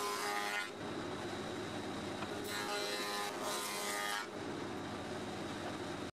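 Spindle moulder (wood shaper) running steadily, its cutter biting into a hardwood board fed by hand along the fence: one cutting pass ends under a second in, and a second pass runs from about two and a half to four seconds in.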